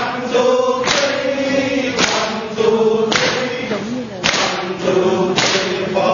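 A group of people chanting in unison, with a sharp clap of many hands about once a second, keeping the beat of the four-beat clapping exercise.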